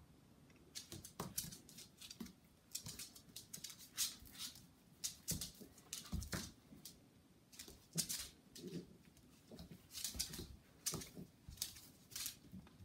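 A cat and a small dog play-fighting on a hard floor: rapid, irregular clicking and scrabbling of claws and paws skittering on the tiles, with occasional thumps, starting about a second in.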